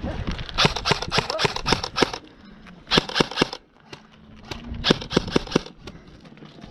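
Airsoft guns firing in rapid strings of sharp snapping shots: three bursts, the first and longest lasting about a second and a half, then two shorter ones about a second and a half apart.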